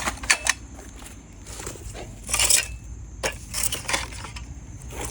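Irregular crunching and clinking noises with a few sharp knocks, the loudest about two and a half seconds in.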